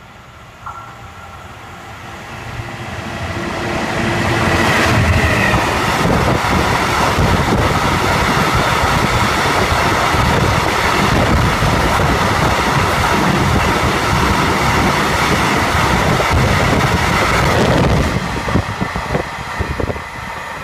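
Class 66 freight locomotive's two-stroke V12 diesel and a train of covered hopper wagons passing through at speed. The sound builds over the first few seconds as the train approaches. Then comes a long, loud, steady rush and clatter of wheels on rail as the wagons go by, dropping off sharply about 18 seconds in as the last wagon passes, leaving fading clatter.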